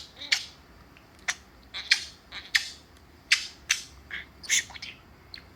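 Budgerigar giving a run of short, sharp chirps, about a dozen at irregular intervals.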